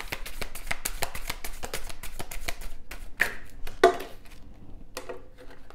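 A deck of tarot cards being shuffled by hand: a quick run of soft papery flicks and taps, thinning out after about four seconds, with one louder tap just before then.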